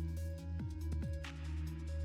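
Electronic background music with a heavy bass line and a steady beat of falling kick-drum thumps about twice a second.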